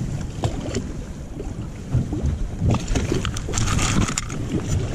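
Wind buffeting the microphone and choppy water slapping a boat's hull, with scattered short knocks and clicks in the second half.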